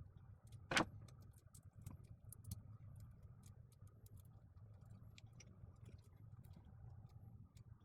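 Faint clicks and taps of hand-handling small parts and wires at a workbench, with one sharp louder click about a second in, over a steady low hum.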